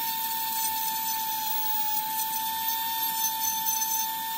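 Small electric power tool running steadily with a high, even whine, sanding the edges of cut wood slat pieces.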